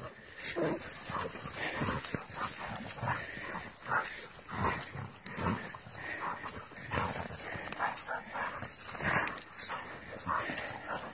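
Hunting dogs scuffling and tugging at a fox, with a run of short, irregular dog noises about every half second.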